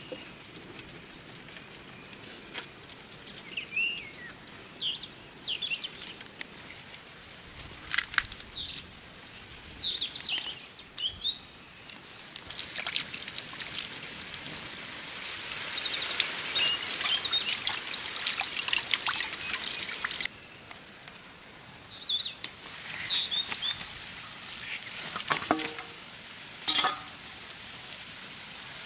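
A scalded chicken is handled and plucked over a pot of hot water: a long stretch of rustling, splashing noise in the middle that stops suddenly, and a few sharp knocks, while small birds chirp now and then.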